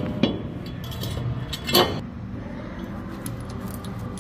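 Steel nut and washer clinking against a rusty bolt and base plate as they are handled on by hand: a sharp clink about a quarter second in, a louder one near two seconds in, then a few faint ticks.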